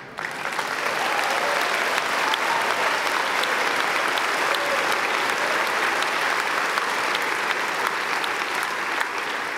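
Large audience applauding: the applause breaks out suddenly, builds within the first second and keeps up steadily, with a few voices faintly heard inside it.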